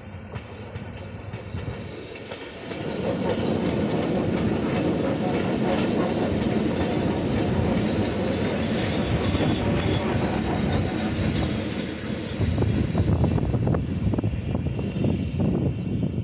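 Several coupled class 125.8 electric locomotives rolling past close by as one train. The rumble grows louder about three seconds in, and the wheels clatter over the rail joints, with the clacking heaviest near the end.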